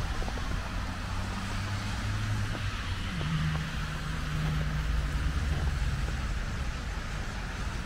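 Road traffic on a snowy street: a steady hiss of tyres on the road with the low hum of passing car engines, which drops in pitch about three seconds in.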